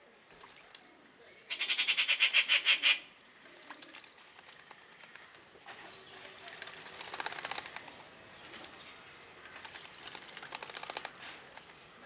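Common mynas bathing in a shallow bowl of water, beating their wings to splash in quick fluttering bouts. A loud bout of about a second and a half comes near the start, then two softer ones later.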